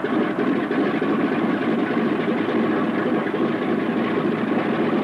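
B-17 Flying Fortress engine, a Wright R-1820 Cyclone nine-cylinder radial, running steadily just after being started.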